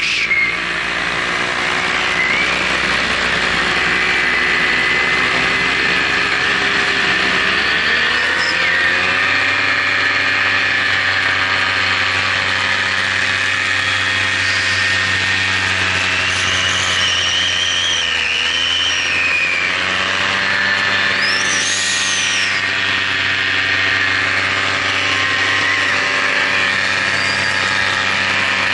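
A drone's electric motors and propellers heard from its onboard camera: a loud, steady whine with many overtones whose pitch dips and climbs back with throttle, about a quarter of the way in and again just past the middle, with higher whistling tones gliding up and down.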